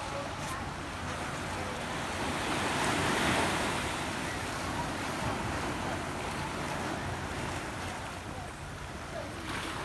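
Ocean waves breaking and washing over a rocky shoreline, the surf swelling to its loudest about three seconds in, with wind rumbling on the microphone.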